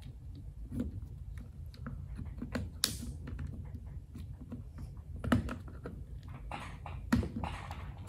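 Small irregular plastic clicks and scrapes as a precision screwdriver pries the TPA lock out of a GPEC2 engine-computer wiring connector. A few sharper snaps stand out, about three, five and seven seconds in, over a low steady hum.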